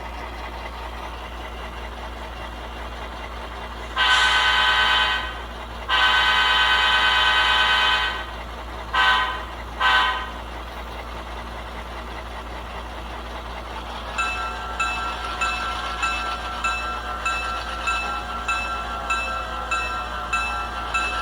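Tsunami 2 sound decoder in an HO-scale F7A model diesel locomotive, heard through a small iPhone speaker. The engine idles, then the horn sounds two long blasts and two short ones. From about two-thirds of the way in, a bell-like ringing repeats about twice a second.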